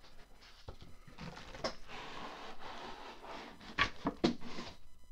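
Cardboard box and foam packing rustling and scraping as a microphone is pulled out of its box, with a few sharp knocks, the loudest two near the end.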